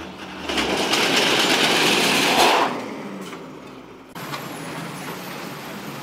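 A truck drives out from under its load. A bundle of bamboo poles slides off the bed to the ground with a loud rushing, scraping noise lasting about two seconds, then dies away. About four seconds in it gives way to steady, quieter roadside traffic noise.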